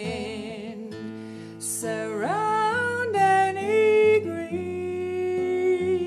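A woman singing held notes with vibrato over acoustic guitar; about two seconds in her voice slides up into a higher held note.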